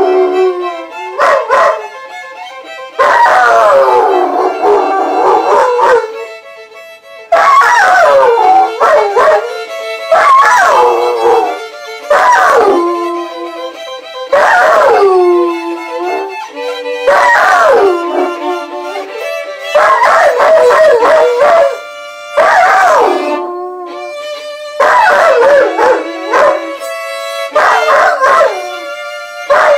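A dog howling along with a violin: about ten long howls, each sliding down in pitch over a couple of seconds, over the violin's sustained notes.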